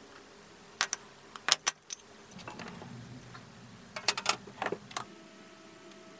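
Metallic clinks and taps in three short clusters, the sharpest with a brief high ring, like steel tools or parts being knocked together or set down on a workbench.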